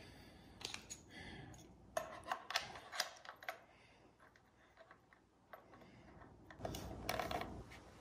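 Handling sounds of a camera monitor and a 15mm rod clamp: small clicks and knocks as the monitor is turned over and the clamp is screwed onto its quarter-inch mount, with a louder stretch of rubbing and knocking near the end.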